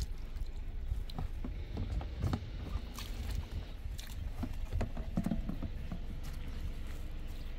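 Irregular knocks and clicks, most of them in the first two-thirds, over a steady low rumble.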